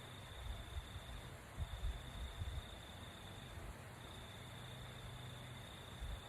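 A high, steady insect trill, typical of a cricket, that breaks off briefly twice, over a faint hiss, with a few low muffled bumps in the first half.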